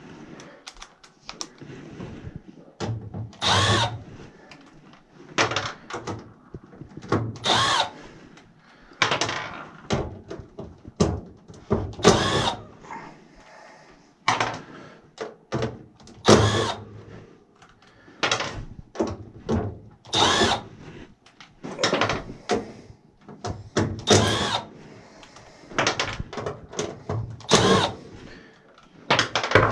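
Cordless drill/driver run in many short bursts, one every second or two, as screws are driven or backed out.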